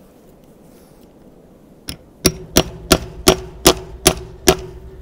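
Claw hammer driving a metal latch pin into a wooden gate post: a light tap about two seconds in, then seven hard blows at about three a second, each with a metallic ring.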